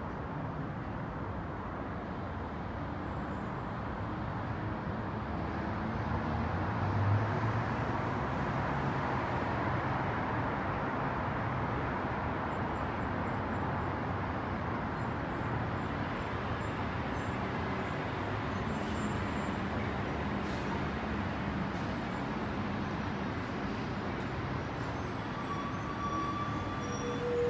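Steady hum of distant city traffic, with a brief louder low rumble about seven seconds in.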